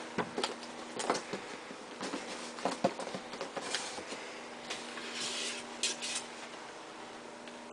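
Light taps, clicks and short scrapes of a sword blade on a cardboard box as it is drawn across the top to slit the packing tape.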